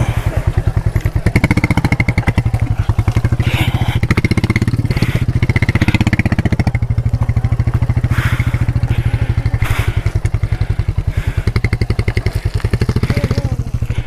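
Motorcycle engine running at low revs with a steady, even beat of exhaust pulses as the bike is ridden slowly through deep mud ruts.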